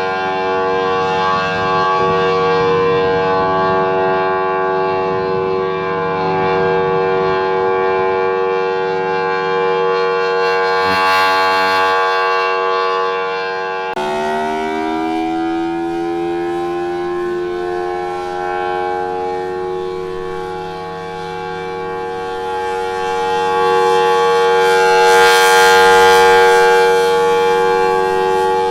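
Air raid siren sounding a steady chord of several tones. About halfway through it breaks off abruptly into a siren winding up, its pitch rising and then holding steady, growing louder near the end.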